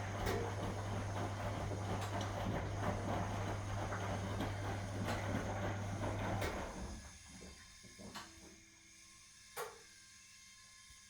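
1961 AEG Lavamat Noris washing machine's motor humming as it turns the drum through the wash water, stopping about six and a half seconds in. A pause with a couple of faint clicks follows.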